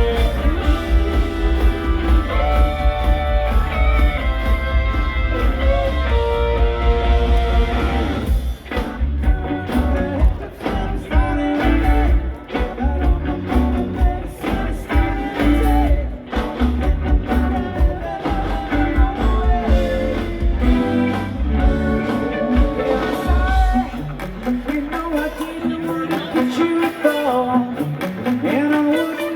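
Rock band playing live, electric guitar lines over bass and drums. The low bass drops out near the end.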